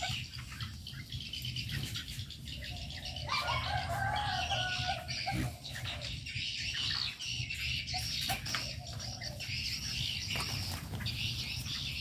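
Many birds in an aviary calling over one another: a constant chatter of high chirps, with lower calls coming in a few seconds in and again later. A steady low hum sits underneath.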